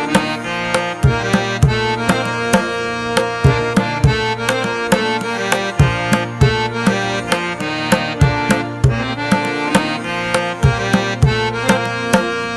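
Background music with tabla-like hand drums beating a steady rhythm under a melodic instrument.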